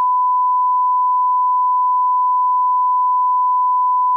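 Broadcast line-up tone: a single steady, unwavering one-kilohertz reference tone played under a commercial's slate, used to set audio levels before the programme.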